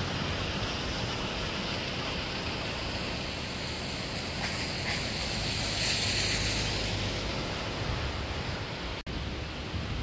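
A rain-swollen stream in flood, its fast brown water rushing with a steady hiss. The sound cuts out for an instant about nine seconds in.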